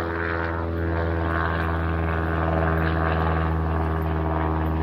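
Single-engine Cessna propeller plane droning steadily overhead, its engine note holding an even pitch.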